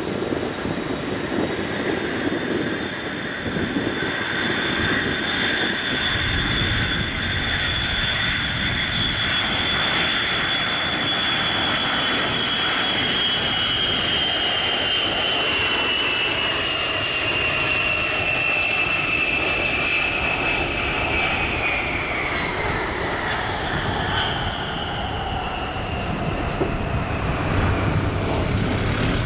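Boeing E-8C Joint STARS's four TF33 turbofan engines running with a steady high whine over a rumble as the jet passes. The whine drops in pitch about twenty seconds in.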